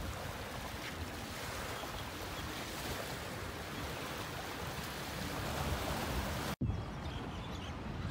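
Wind buffeting the phone's microphone over the sound of water lapping along the shore. About six and a half seconds in it cuts off abruptly, and a quieter outdoor background follows.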